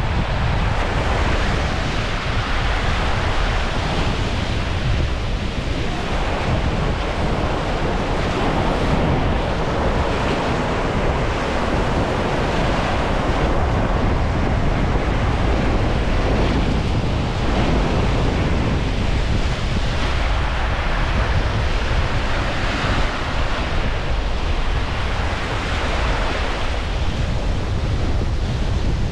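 Strong wind blowing across the microphone: a loud, steady rush of noise that swells and eases with the gusts.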